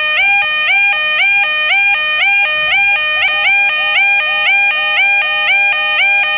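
Electronic level crossing warning alarm ringing: a rapid, steady two-tone ding-ding, about four tones a second, each tone sliding up briefly as it starts.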